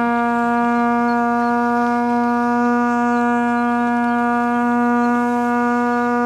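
Horn carved from glacier ice holding one long, steady low note, rich in overtones.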